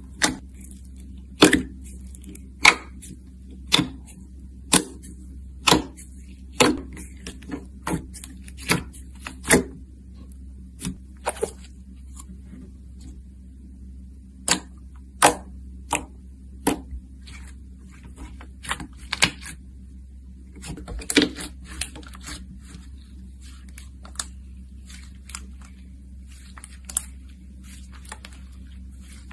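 Clear glossy slime squeezed and poked between the fingers, making sharp pops and clicks. The pops come about once a second at first, then at irregular times and in small clusters.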